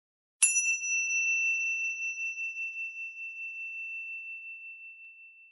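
A high-pitched meditation chime struck once about half a second in. Its upper overtones die away quickly while one clear tone rings on with a slow wavering pulse, fading out over about five seconds: the signal that the meditation is beginning.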